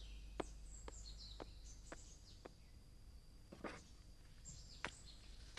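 Quiet room tone with faint birds chirping and light, scattered clicks and taps, about two a second at first.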